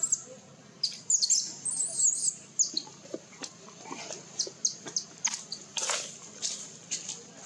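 Baby macaque squealing: a string of short, very high-pitched squeaks and squeals, some rising and falling in pitch, over a steady high hiss.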